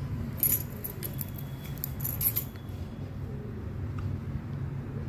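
Chopped onions going into hot mustard oil with spluttering mustard and cumin seeds in a stainless steel pan and stirred with a spatula: a burst of crackling and metallic clinks against the pan from about half a second to two and a half seconds in, then quieter stirring.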